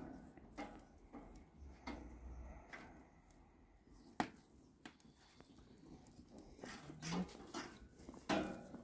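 Scattered light clicks and knocks of metal tongs handling meat on a barbecue grill grate, with a brief low sound about seven seconds in.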